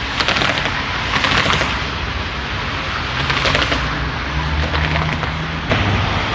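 CAF Urbos light rail tram moving slowly at low speed, with a low motor hum and a steady tone. Several short bursts of rapid crackling clicks come through over it.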